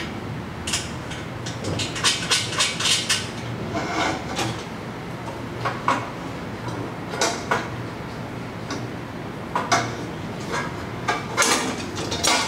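Stainless steel exhaust pipes and muffler clinking and knocking against each other as they are fitted by hand onto the header, in irregular clusters of sharp metallic clinks.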